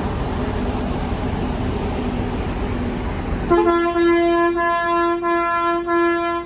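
Crowd murmur and street hum for the first half. Then, about three and a half seconds in, a steady horn-like tone with many overtones starts and holds for about three seconds, pulsing slightly.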